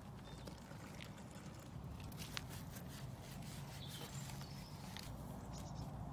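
Faint scattered clicks and taps from a plastic paint tray and a cloth being handled, over a low steady rumble.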